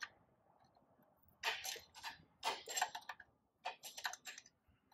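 Hand wrench clicking in several short runs as it works the half-inch nuts off the injection pump mounting studs of an Allis-Chalmers 160 diesel tractor.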